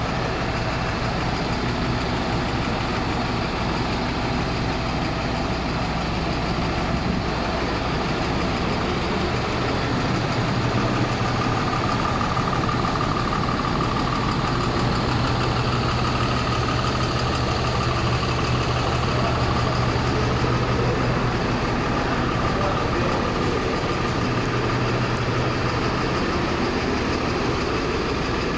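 A truck's diesel engine idling steadily, with a faint higher whine joining in for a while around the middle.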